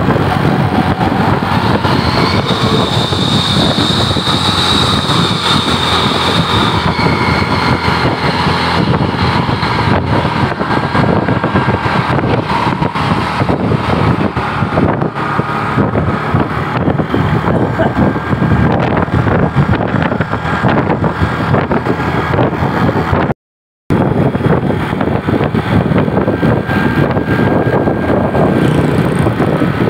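Tour bus diesel engine running steadily close by. No telolet horn melody sounds. The sound drops out briefly about two-thirds of the way through.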